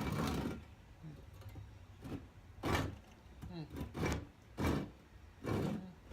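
Hand saw cutting through a block of wood held in a vise, about six rasping strokes at an uneven pace. The cut is slow going: the wood is not easy to cut.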